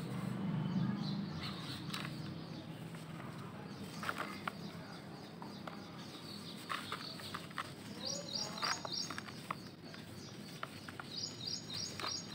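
Dry soil clods crumbled and rubbed apart by hand into a bucket, the grains crackling and pattering down as the lumps break. A bird chirps twice in quick runs of high notes in the background, and a low background rumble fades over the first two seconds.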